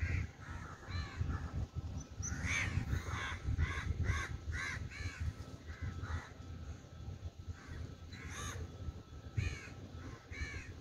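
Crows cawing again and again, with a quick run of caws at about two a second in the middle, over a steady low rumble.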